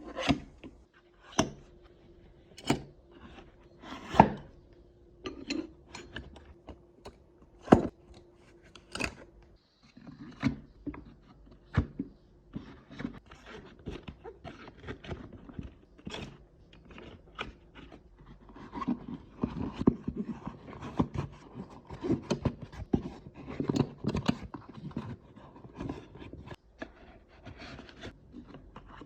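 Hand tools handled and packed into a tool bag: scattered sharp knocks and clunks as tools are set down, with scraping and rustling. The handling grows busier and more continuous in the second half.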